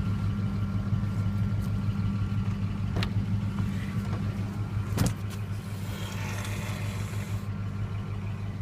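A steady low motor hum, with two sharp clicks about three and five seconds in.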